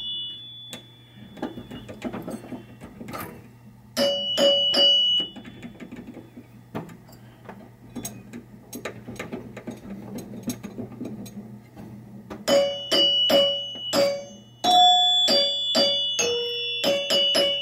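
Pinball chime box of a 1976 Bally Captain Fantastic ringing as its chime bars are struck in test, at more than one pitch: a few quick dings about four seconds in, then a fast run of dings over the last five seconds, with screwdriver and handling noise between. To the owner it still doesn't sound good after he has tightened it down.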